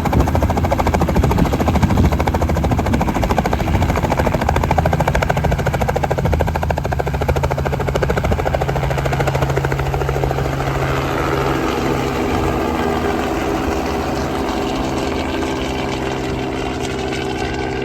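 Aircraft engines running loud and steady, with a fast pulsing beat. About ten seconds in, a low tone drops away as higher tones come up, and the sound eases off slightly near the end.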